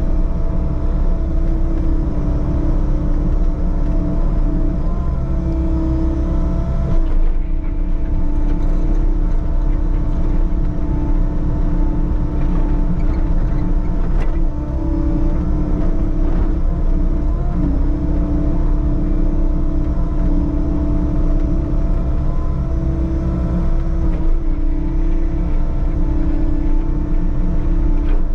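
Diesel engine of a compact construction machine running steadily at high revs, with a constant whine over a deep rumble; the rumble drops about seven seconds in.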